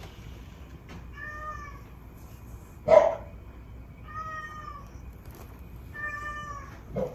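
A cat meows three times, short even-pitched meows spaced a couple of seconds apart. A brief, louder sound comes between the second and third meows, about three seconds in.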